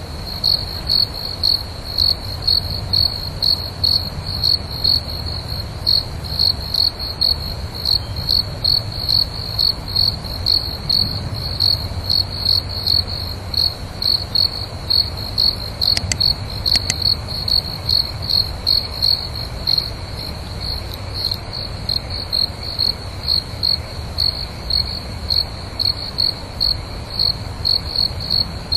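A cricket chirping steadily in a high, even rhythm, about two chirps a second, over a faint low rumble.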